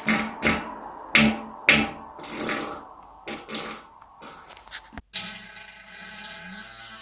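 Human farts: a run of short, sputtering blasts about every half second, then, after a brief break about five seconds in, a longer, steadier pitched one that wavers near the end.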